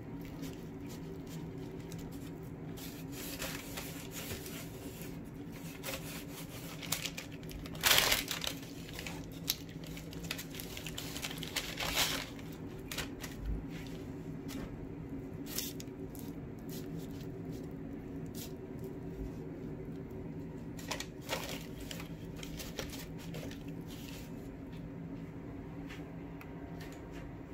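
Hands rubbing an oily spice paste into whole sea bass on baking paper: wet squishing and paper crinkling in short irregular bursts, loudest about eight and twelve seconds in, over a steady low hum.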